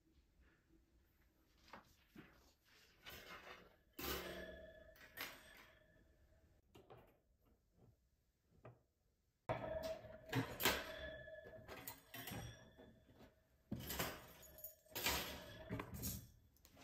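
Metal wire cooling rack handled on a wooden table: clusters of clinks and rattles from the wires, each knock followed by a short metallic ring. They come in two bursts, about four seconds in and again from about nine seconds on.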